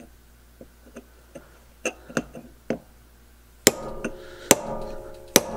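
A hammer strikes a pin punch to drive the rust-seized pin out of a roller chain's master link clamped in a vise. A few light ticks give way, about three and a half seconds in, to sharper strikes with a metallic ring.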